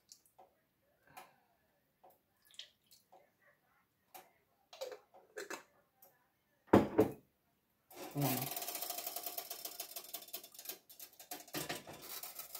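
Faint clicks of a glass sauce bottle being handled, a loud knock about seven seconds in, then a rapid rattling clatter from about eight seconds on as a saucepan of sauced chicken wings is shaken by its handle on an electric coil burner.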